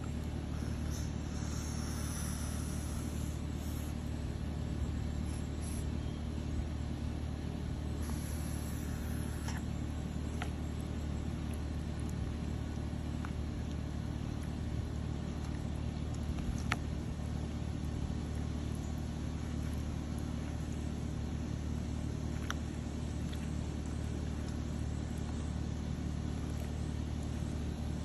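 A steady low machine hum from an unseen motor or engine, with a few faint clicks as a sulcata tortoise bites into wet mash in a steel bowl.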